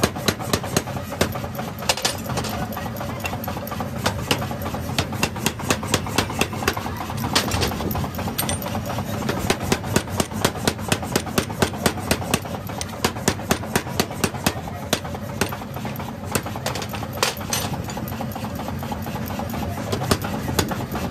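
Mechanical power hammer striking red-hot railroad-track steel on its anvil, a rapid run of sharp metallic blows at about three a second over the steady hum of the machine, with fewer blows for a few seconds about two-thirds through.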